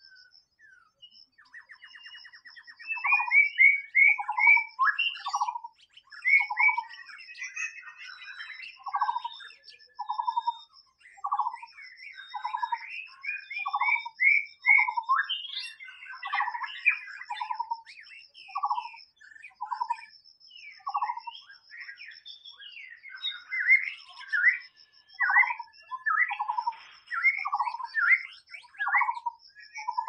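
White-rumped shama singing: a long run of clear whistled phrases, a low note repeated about once a second with quick rising whistles in between, and a short buzzy rattle about two seconds in. A faint high pulsing trill runs steadily underneath.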